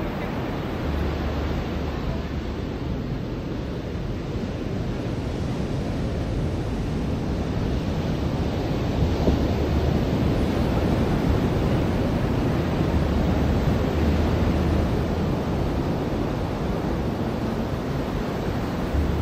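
Ocean surf washing onto a beach, a steady rush of waves with wind buffeting the microphone; the wash swells a little louder about eight seconds in.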